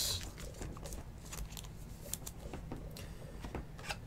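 Faint rustling and small scattered clicks of a trading card being handled and slid into a clear plastic sleeve.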